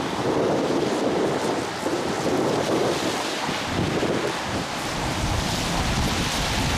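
Wind buffeting the microphone during a snowstorm: a steady rushing noise that swells in gusts, with a heavier low rumble from about five seconds in.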